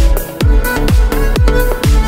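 Electronic dance music with a steady kick drum about twice a second under held synth notes.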